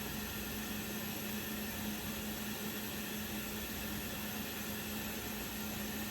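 Steady low hum with a constant hiss and no distinct knocks or changes: background machine or appliance noise.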